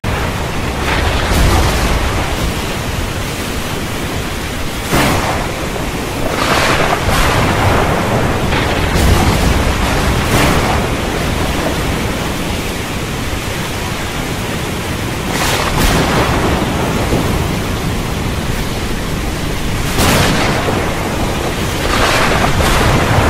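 Thunderstorm: steady heavy rain over a low rumble, broken about ten times by sudden sharp cracks of thunder that die away quickly.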